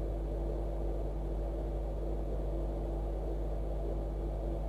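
Steady whir and hum of a CPU cooler fan spinning on a freshly powered-up ASRock G41M-VS3 motherboard, with a constant low tone. The board is holding power after its faulty VRM MOSFET was replaced.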